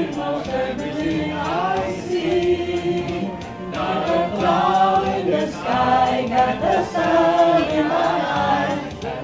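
Several voices singing a song together over music with a steady beat.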